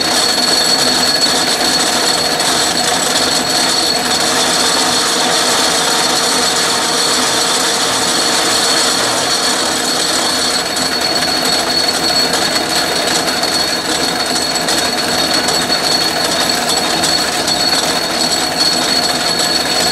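Atlas metal lathe running under power, with a steady mechanical whir from its motor, belt drive and change gears and a thin constant high whine. A single-point threading tool is taking another pass, about five thousandths deep, in a steel bore.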